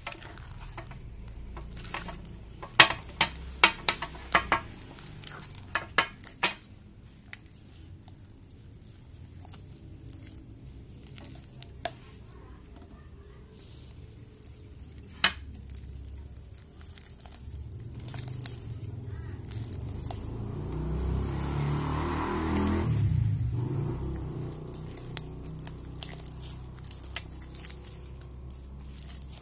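Slime being mixed in a bowl as the liquid detergent sets it, then lifted, pulled and kneaded by hand. A run of sharp clicks fills the first several seconds, then the handling goes quieter, with a louder rubbing swell building about twenty seconds in and fading.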